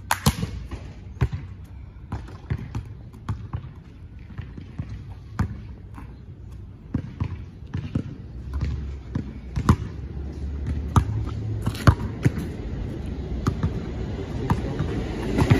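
A basketball bouncing on an outdoor asphalt court: sharp, irregularly spaced bounces, the first and loudest just after the start.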